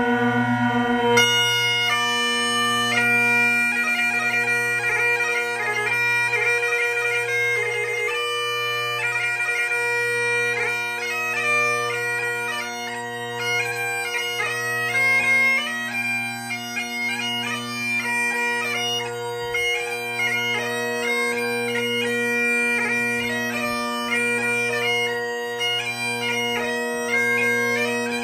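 3D-printed Great Highland bagpipes played solo: the chanter plays a tune of quickly changing notes over the steady hum of the drones.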